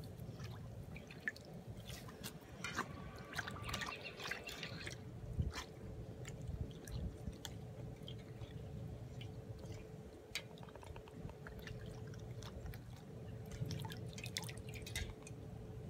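Dog blowing bubbles into a stainless steel bowl of water with its nose: water bubbling and splashing in uneven spells, with drips and small clicks, over a faint steady hum.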